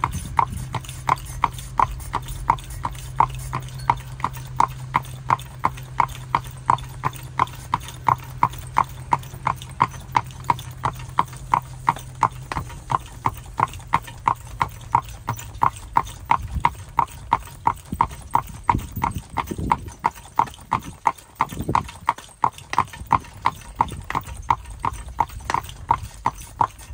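A harnessed horse's hooves clip-clopping on a paved road, in a steady, even rhythm of a little over two beats a second.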